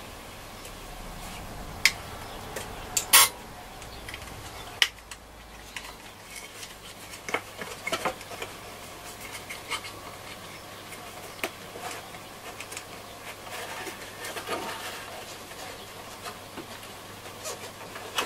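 Hard plastic battery holder clicking, knocking and scraping as it is handled and fitted into the battery compartment of a Hacker Super Sovereign radio, with a few sharp knocks in the first five seconds and lighter clicks and rubbing after.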